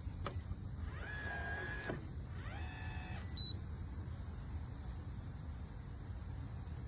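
Schlage smart Wi-Fi deadbolt's small electric motor running twice, first for about a second and then for under a second, with clicks before the first run and a short high beep just after the second.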